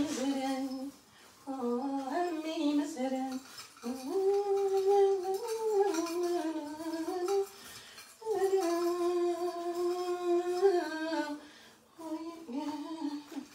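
A woman humming a slow tune in several phrases with short breaks between them, holding long notes in the middle.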